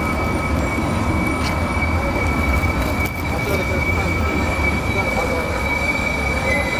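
Tram wheels squealing against the rails in one steady high-pitched tone, over a low rumble.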